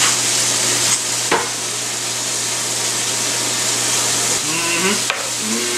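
Chicken pieces searing in hot oil in a pan, sizzling steadily, with a few sharp clicks about a second in and near the end.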